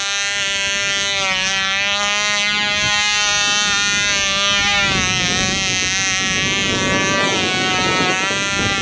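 Cox .049 glow engine on a small model biplane running flat out, a loud, high-pitched buzz whose pitch wavers slightly. About halfway through a rushing noise joins it.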